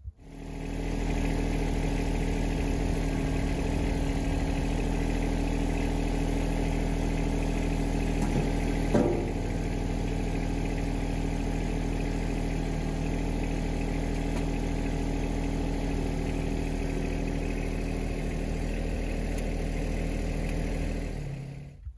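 Yanmar SA324 compact tractor's three-cylinder diesel engine running steadily, with one short clunk about nine seconds in.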